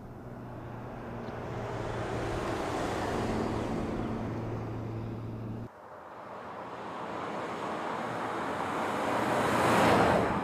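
Mercedes-Benz S 400 Hybrid saloon driving past: tyre and engine noise with a steady low hum grows as it approaches. After a sudden cut about halfway, a second pass swells to a close whoosh near the end and then drops away.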